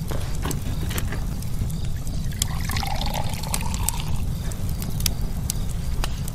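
Liquor poured from a bottle into a shot glass, a trickling pour lasting about a second and a half midway. Behind it a wood fire crackles with sharp pops over a steady low rumble.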